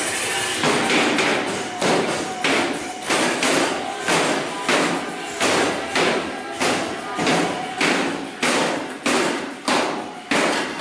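A steady run of heavy thuds, about three every two seconds, beginning under a second in, each hit ringing out briefly before the next.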